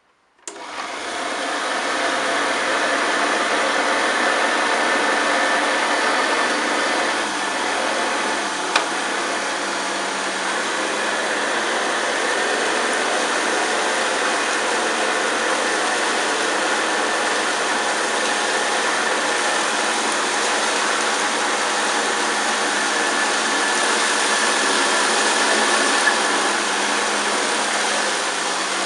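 1971 Hoover Senior 6525C vacuum cleaner switched on about half a second in, its motor running up to speed and then running steadily while it goes over scattered cornflakes, with a single sharp click near nine seconds.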